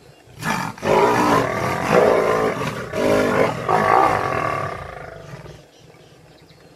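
Big cats snarling: lionesses confronting a leopard at close quarters. A loud outburst starts suddenly about half a second in, goes on in several snarls and growls, and dies away about a second before the end.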